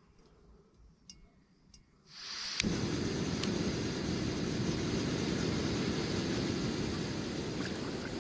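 Portable camping gas stove turned on: a hiss of gas starts about two seconds in, a sharp click follows, then the burner runs with a steady rushing noise.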